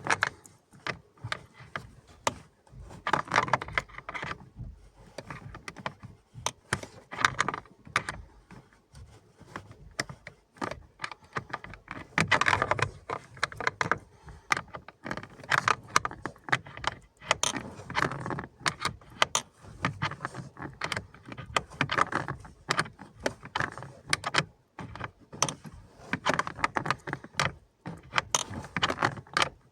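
Hand tools working under the dash of a Lada Niva 21214 as the nut holding the new heater fan motor is tightened: many irregular metallic clicks and rattles, busier in a few short stretches.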